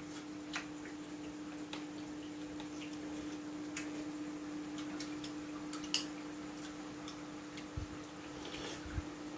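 Metal spoons clinking now and then against metal bowls of soup as two people eat: a few light, spread-out clicks, the sharpest about six seconds in. A steady low hum runs underneath.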